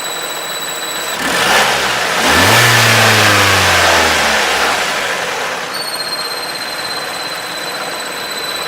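A car engine with a steady high-pitched whistle from the engine bay. About a second in, the engine is revved with a loud rush of air, rising and falling in pitch, and this drowns out the whistle. The whistle comes back as the revs settle, sliding slightly down in pitch. It persists regardless of engine speed.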